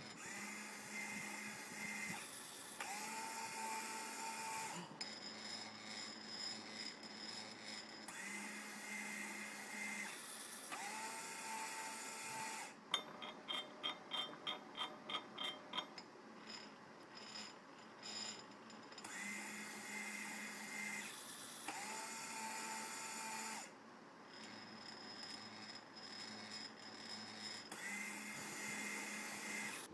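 Small electric motors of a homemade automated soldering robot (stepper motors for the X and Y axes, DC motors for the Z axis and the solder-wire feed) running through a programmed sequence. Whining motor runs start and stop every few seconds over a steady hum. In the middle comes a stretch of about three sharp clicks a second.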